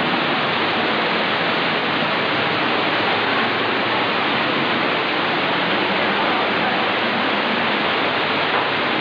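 Waterfall pouring close by, heard from behind the falling curtain of water: a loud, steady rush of water with no let-up.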